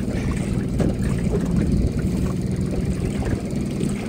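Boat motor running steadily at trolling speed, a low continuous hum.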